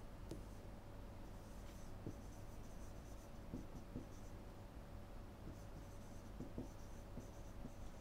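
Faint scratching and light tapping of a stylus writing on a tablet, over a steady low hum.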